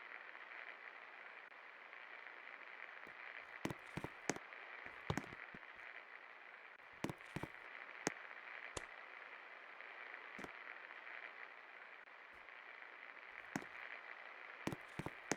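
36-inch SK antique ceiling fan running with a steady, faint whirring hiss. Irregular sharp clicks sound over it, some in quick pairs.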